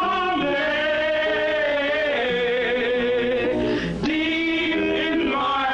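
A song with long, drawn-out sung notes and vibrato, and a short break between phrases about four seconds in.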